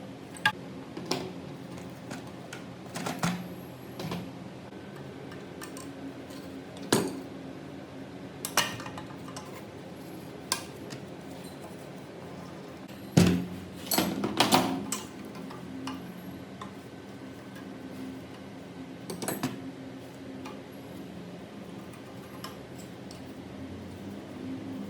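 Small metal parts clinking and knocking as they are handled and set down, about a dozen separate knocks, some with a brief metallic ring, over a steady low hum.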